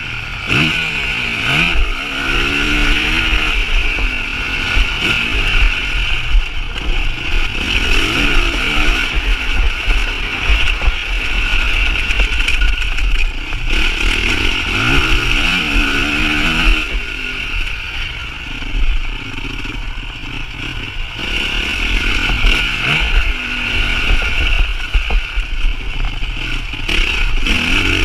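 Motocross bike engine revving hard and climbing through the gears, the revs rising and dropping again several times as the rider shifts and rolls off, heard from a GoPro mounted on the bike with wind noise on the microphone.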